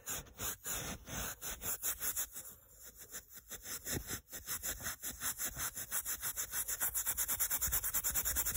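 Fine #0000 steel wool scrubbed back and forth by hand on a rusty metal car mirror, polishing away rust. Scratchy rubbing strokes, irregular at first, then a fast, even run of about five a second that grows louder in the second half.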